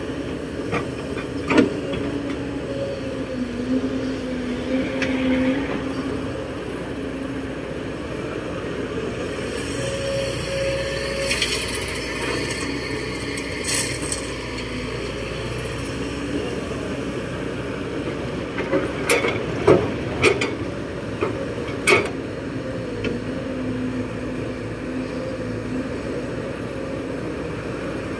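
Kobelco SK200-8 crawler excavator working: diesel engine running under load with hydraulic whine that changes pitch as the boom and bucket move. Partway through, soil pours from the bucket into the steel dump truck bed with a rushing, rattling hiss, and later come several sharp metallic clanks from the bucket and linkage.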